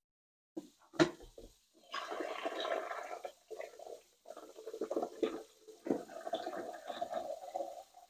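Water running and gurgling in a drip coffee maker during a clear-water rinse after descaling. A sharp knock about a second in is the loudest sound.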